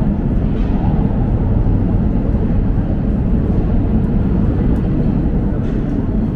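Underground metro platform ambience: a steady low rumble with no distinct events.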